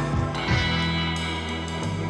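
Background music with electric guitar over a steady bass line.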